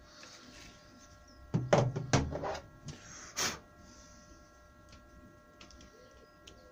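Woodworking tools and hardware being handled on a workshop bench: a quick cluster of hard knocks and clatters, then a short brushing swish.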